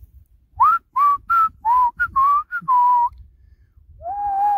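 A man whistling a tune: a quick run of short notes starting about half a second in, a pause, then a longer held note near the end.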